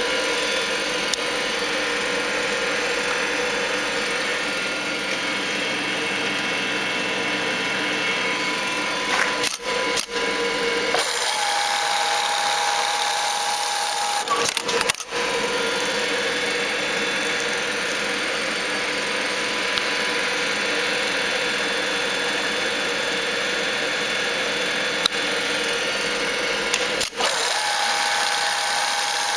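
Pfaff 3338 automatic bartack sewing machine running: a steady mechanical whir with a hum, broken by a few short gaps.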